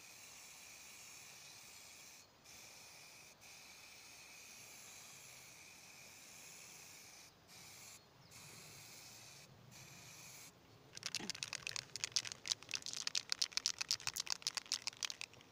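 An aerosol spray-paint can hissing in long sprays, cut by a few brief pauses where the nozzle is let go. About eleven seconds in, the can is shaken and its mixing ball rattles rapidly and loudly to the end.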